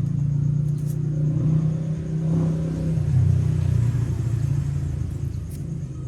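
A loud, low rumble like a motor vehicle's engine running, loudest in the middle and easing off near the end.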